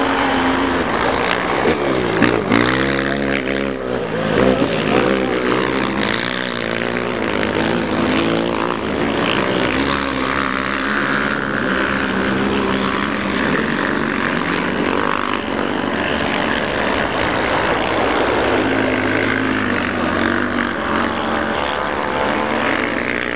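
Racing ATV engines revving hard and running at high speed, their pitch rising and falling as the quads pass and change throttle, with several engines heard at once.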